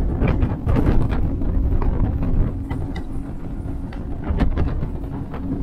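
Mercury outboard motor running steadily at about 2,800 rpm while the boat planes across choppy water, with irregular slaps and splashes of the hull on the waves and wind on the microphone. The owner believes the engine's water-pump impeller has failed.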